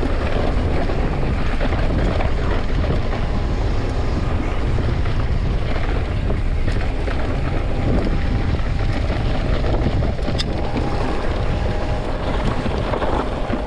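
Steady rush of wind on the microphone of a Santa Cruz Nomad mountain bike ridden fast down a dirt trail, mixed with the rumble of the tyres and a few small clicks and rattles from the bike.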